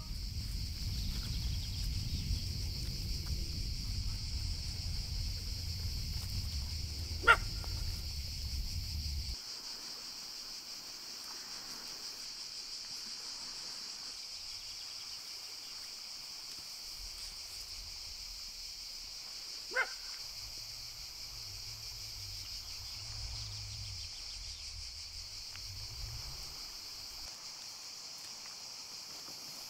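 A dog barks once, sharply, and again about twelve seconds later, over a steady high hiss. A low rumble in the first third stops abruptly.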